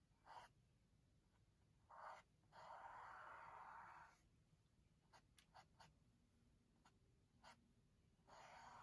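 Faint strokes of a paintbrush dragged over canvas: several soft scratchy swishes, the longest about a second and a half, with a few light ticks in between.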